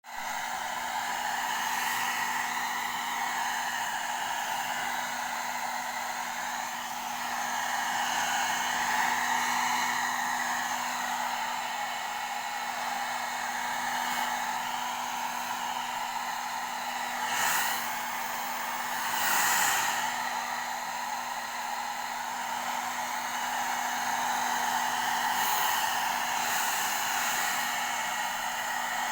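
Hair dryer running steadily, blowing on a long-haired Persian cat's fur, with a low motor hum under the rush of air. The airflow swells into two brief, louder whooshes about two-thirds of the way through.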